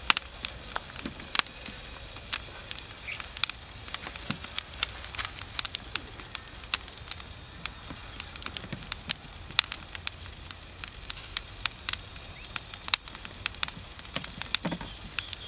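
Irregular crackling and popping, a few sharp pops a second, from a whole pig roasting on a spit over glowing charcoal embers, its skin starting to blister and crisp in the heat.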